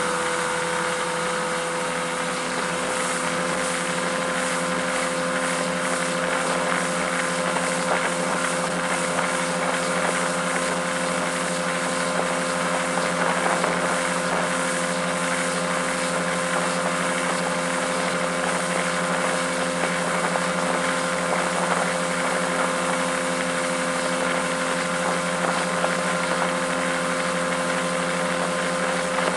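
Mercury 200 outboard motor running at a steady, unchanging speed while pulling a barefoot water skier, with wind and rushing water over it.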